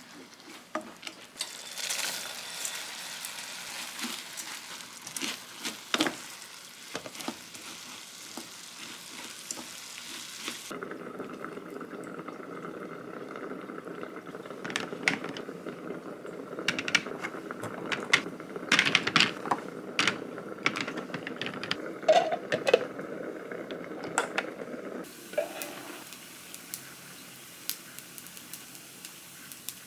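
Food sizzling in a frying pan, with a utensil clicking and scraping against the pan as it is stirred. The sizzle changes abruptly about a third of the way in and again near the end.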